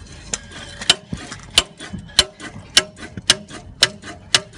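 Sharp metallic knocks, about two a second, each with a short ringing tone, as the Citroen Relay van's DPF/catalytic converter is rocked by hand. The unit appears to be cracked at its bracket point, which is the cause of the knocking.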